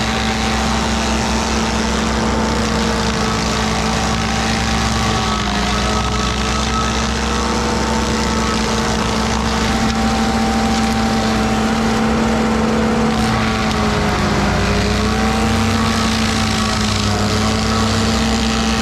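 Stump grinder running hard at high engine speed: a loud, steady engine drone with a whine whose pitch sags briefly twice.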